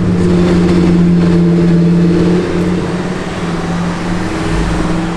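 Lamborghini Huracán STO's naturally aspirated V10 engine running at steady low revs, loud for the first couple of seconds and then easing off a little.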